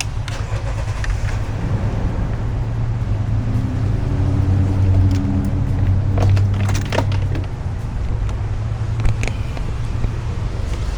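Steady low mechanical hum with a few scattered clicks and knocks as plastic wiring connectors and door-panel parts are handled.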